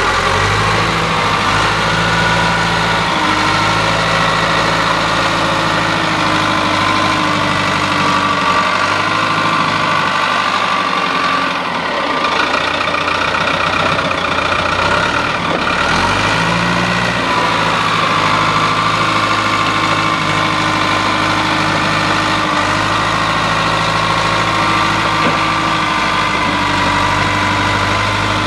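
Caterpillar D3B crawler dozer's four-cylinder diesel engine running steadily, with a whine above the engine note. Near the middle the engine speed drops for several seconds, then rises again about sixteen seconds in.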